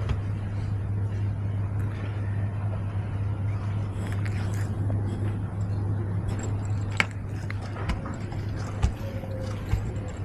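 A steady low hum, such as traffic or a machine running nearby, with a few sharp clicks or taps in the second half.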